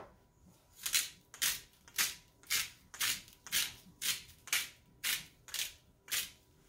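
Hand-twisted spice grinder cranked over raw chicken cutlets, a rhythmic run of about eleven short grinding crunches, roughly two a second, starting about a second in.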